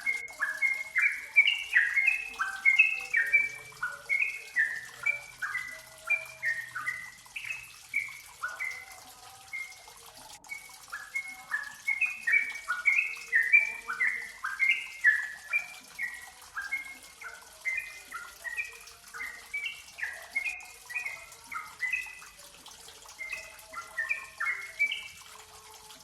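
Yellow-vented bulbul singing a fast, continuous run of short chirping notes, several a second, with a brief lull about ten seconds in.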